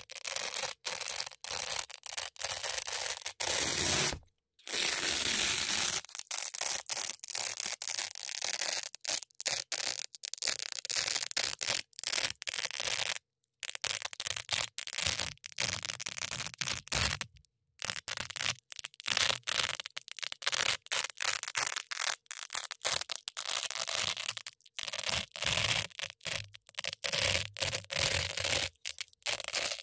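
Velcro hook-and-loop strips scratched and rubbed together close to the microphone, a dense crunchy crackle in many quick strokes with a few short pauses.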